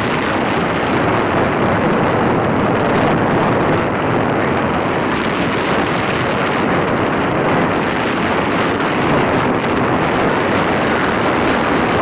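Strong wind buffeting the microphone over the steady rush of rough surf breaking on the beach: a loud, even wash of noise that hardly changes.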